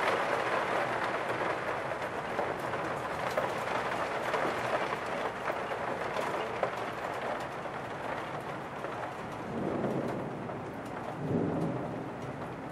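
Steady rain falling, a dense hiss that slowly eases off, with two low rumbles of thunder near the end.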